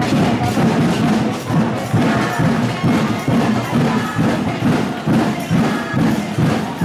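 Music with a steady percussive beat, about two beats a second.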